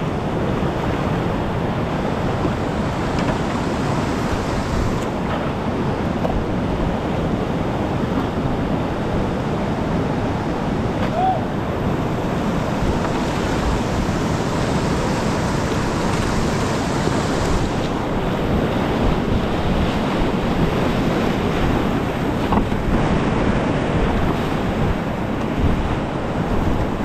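Whitewater rapids at high flow, a steady, loud rush of churning water heard close from a kayak on the water.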